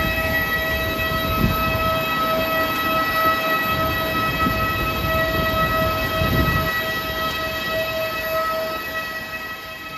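A parked Airbus A319's auxiliary power unit whining steadily at one high pitch with several overtones, fading out near the end.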